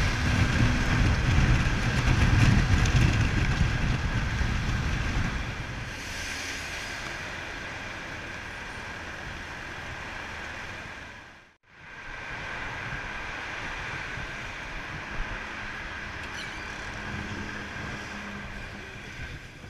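2012 BMW F800GS parallel-twin engine running at highway speed with heavy wind noise, easing off about five seconds in. After a brief fade out and back, quieter steady road-traffic noise.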